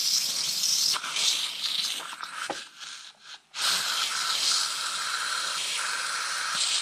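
Instant Pot steam release valve venting under a paper towel, hissing and sputtering as it spits out foamy, creamy cooking liquid during a pressure release. The hiss breaks off about three seconds in, then comes back steady.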